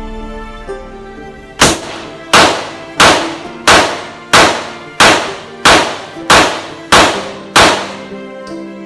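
Handgun fired ten times in steady succession, about one and a half shots a second, each shot sharp with a short ringing tail, over background music.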